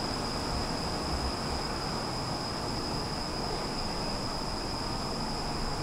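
Steady rumble and hiss of an underground metro station platform, with a constant high-pitched whine over it.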